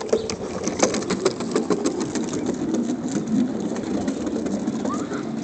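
Wheels of a child's tricycle rolling over wooden boardwalk planks: a steady rattling rumble with many quick clicks.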